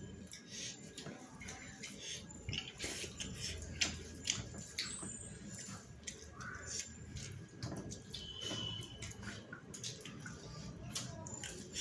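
Eating by hand: wet chewing and mouth smacking on rice, with fingers mixing and scraping rice on a steel plate, heard as an irregular run of small clicks and smacks.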